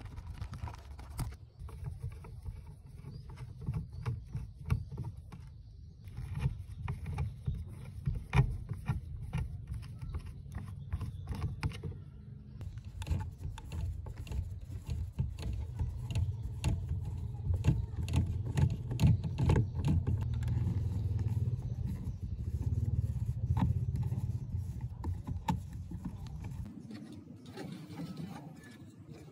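Hands and a screwdriver taking apart a rusty cassette deck's chassis: irregular clicks, knocks and scrapes of metal heatsinks, screws and circuit boards being handled and pried loose, over low handling rumble.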